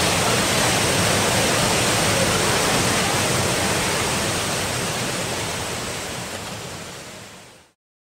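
Small waterfall pouring into a rocky plunge pool: a steady rush of falling water that fades out over the last few seconds.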